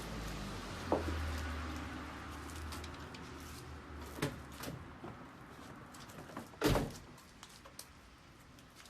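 A few knocks and clicks with one heavy thud about two-thirds of the way through, over a low hum that fades out in the first few seconds.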